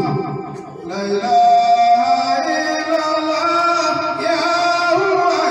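Male voice singing over instrumental accompaniment, in long held notes that change pitch about once a second, with a short dip just under a second in.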